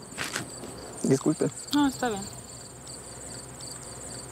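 Field insects chirping in a steady, rapid pulse, with a man saying a few short words between about one and two seconds in.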